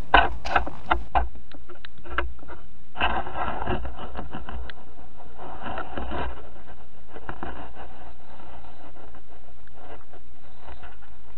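Wind buffeting a small camera's microphone: a steady low rumble, with a few knocks from handling in the first second or so.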